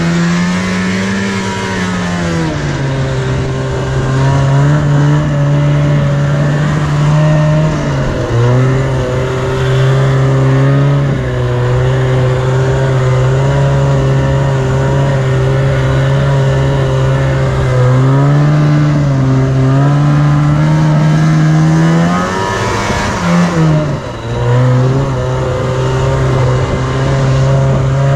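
Yamaha Enticer 340 snowmobile's two-stroke engine running hard at high revs, its pitch held mostly steady. The revs sag and pick back up about eight seconds in and again a few seconds before the end.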